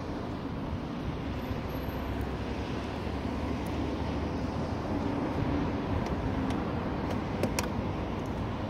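Steady low outdoor rumble of traffic, with a few light, sharp clicks of a socket wrench on metal scattered through it, the clearest about seven and a half seconds in.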